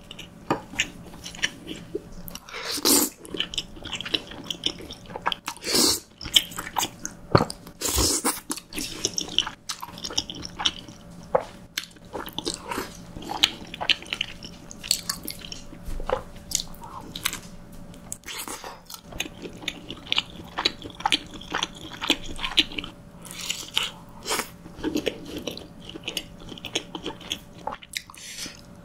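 Close-miked eating of creamy pasta: chewing and wet mouth sounds, with irregular short clicks from a metal fork and wooden spoon against the pasta bowl. A few louder strokes stand out around the first third.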